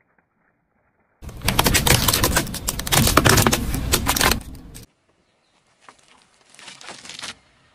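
A car tyre rolling over a plastic toy car and crushing it: a long, loud run of cracking and crunching plastic starting about a second in. After a short gap, a fainter, softer crunching as the tyre squashes foam-bead balls.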